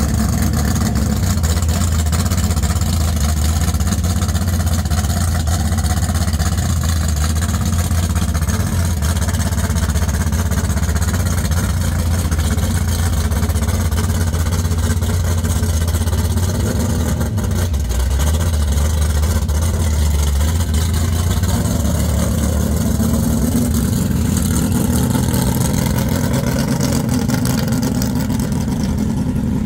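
Dodge Dart drag car's engine running at low speed with a steady, deep exhaust rumble as the car rolls along.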